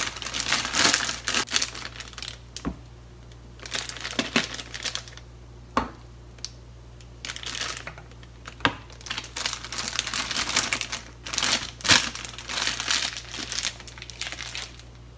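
Plastic bag crinkling in repeated bursts as it is handled and filled with whipped cream, with a few sharp clicks of a metal spoon against the bag and bowl.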